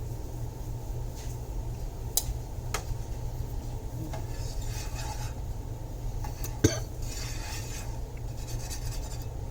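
Kitchen utensils knocking and scraping against cookware: a few sharp clinks, the loudest about two-thirds of the way in, with stretches of scraping between them, over a steady low hum.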